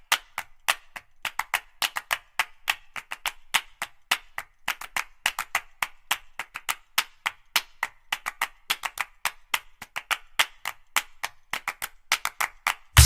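Background music: a fast, even run of sharp percussive clicks, about five a second.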